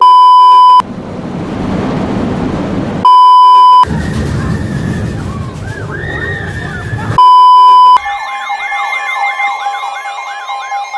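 A loud steady alert tone near 1 kHz sounds in short bursts of under a second, three times a few seconds apart. It cuts into rumbling audio in which a siren wails, rising and falling; near the end the siren yelps quickly, about twice a second.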